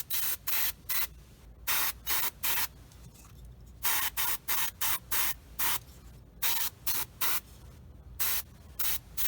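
Airbrush spraying in about twenty short hissing bursts, fired in quick groups of two to four with short pauses between.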